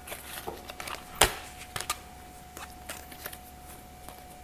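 Tarot cards being gathered up off a cloth mat and squared into a stack: a scatter of light card clicks and slides, the sharpest about a second in.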